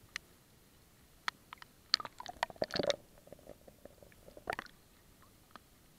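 Lake water splashing and gurgling against a waterproof action camera's housing as it dips into the water, with scattered sharp ticks. The busiest bursts come about two to three seconds in and again about halfway through.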